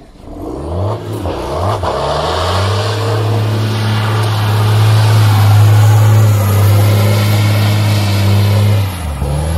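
Drift car engine revved in a few quick blips, then held at high, steady revs for several seconds, with a short drop in revs near the end.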